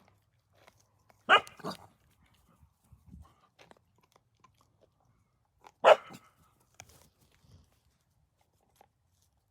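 Dog barking: a quick double bark about a second in and another bark about six seconds in, with faint crunching between of dogs chewing on an elk leg bone.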